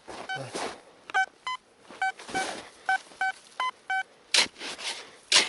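Metal detector beeping over a buried target: about eight short, evenly pitched tones, mostly at one pitch with a couple slightly higher, as the coil is swept back and forth, a strong signal. Two loud noisy swishes come near the end.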